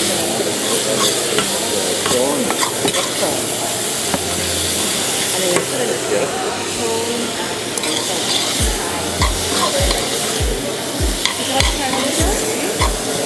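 Carrot, ginger and pineapple sizzling in hot sesame oil in a frying pan, stirred with a utensil that scrapes and clicks against the pan, the curry powder just added. A regular low thudding joins in over the last few seconds.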